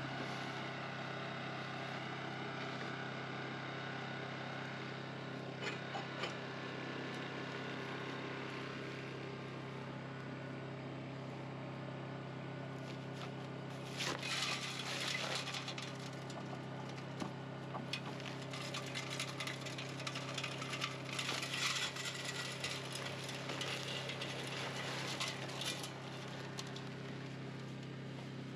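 Portable electric cement mixer running, a steady motor hum with the rattle of its drum gearing. From about halfway, several bursts of dry concrete mix rushing in from bags as a batch is loaded.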